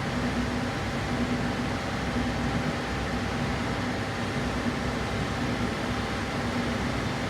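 Steady mechanical hum of a fan running in the workshop, with a low tone that fades in and out irregularly.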